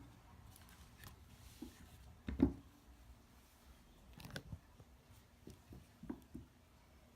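Scattered light clicks and knocks of GSG-5 rifle parts being handled, with one louder knock about two and a half seconds in and a run of clicks between about four and six and a half seconds.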